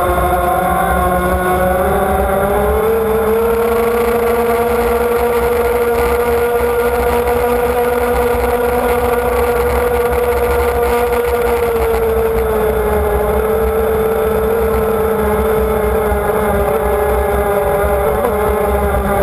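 Racing powerboat's engine running at speed over the water. The steady high engine note climbs about three seconds in, holds, and eases slightly about twelve seconds in.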